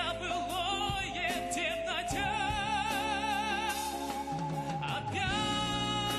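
Male singer holding long sung notes with wide vibrato over instrumental backing, one note sustained for about three seconds before moving to a new pitch.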